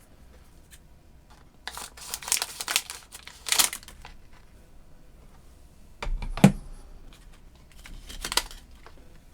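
Plastic packaging of a new audio cable crinkling and tearing as it is opened, in several bursts of rustling. A sharp knock about two-thirds of the way through is the loudest sound.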